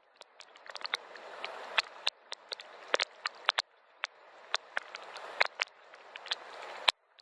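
Gentle rain: a soft steady hiss with many separate sharp drops striking close by, several a second. The hiss cuts out abruptly and builds back up a few times.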